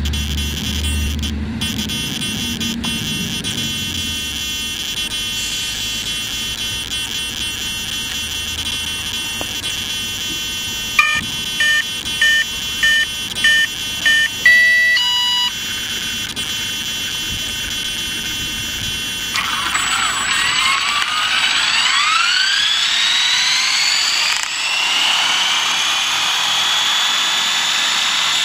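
A steady high whine of several tones. About halfway through comes a string of six short electronic beeps, about two a second. Later a motor spins up: several tones sweep upward together and then hold steady at a high pitch.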